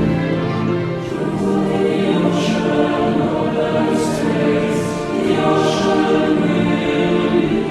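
Background music with a choir singing long held chords.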